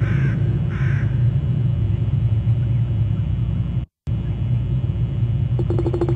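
Two short bird calls in the first second over a steady low hum from the outdoor wildlife-cam microphone. The sound cuts out for an instant about four seconds in, and a buzzy, rapidly pulsing rattle starts near the end.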